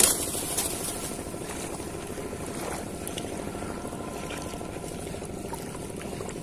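Steady engine hum, with a brief sharp knock right at the start.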